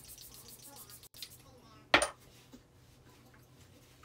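Salt hairspray spraying as a quick run of short hisses that stops about a second in. A single sharp clack follows about two seconds in, the loudest sound here.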